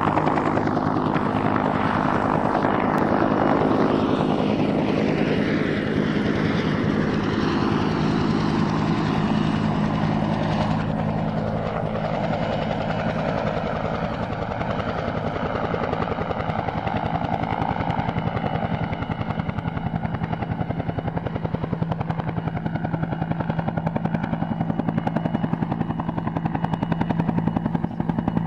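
Helicopter flying: a fast, even rotor beat over a steady engine hum. Over the first ten seconds or so a higher tone slides down in pitch as it passes by.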